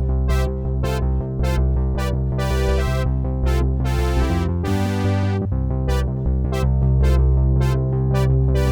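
Eight-voice analog clone of the Roland Jupiter-8 polyphonic synthesizer, recorded direct with a light delay. It plays a held low bass line under short, bright plucked notes about twice a second, with one longer bright note about halfway through.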